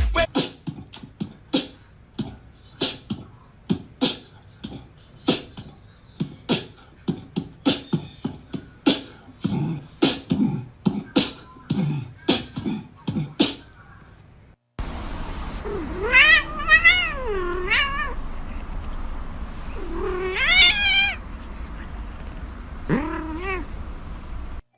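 A cat meowing in long, wavering yowls, three times, over a steady low hum. It is preceded by a long, irregular series of sharp clicks.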